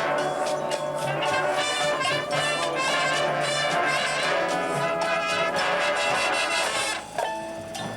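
Drum corps horn line playing loud, full sustained brass chords, dropping to a thinner, quieter passage about seven seconds in.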